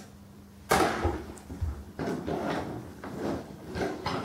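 Wooden toy train pushed by hand along a wooden track, rolling and clattering in uneven pushes that start just under a second in.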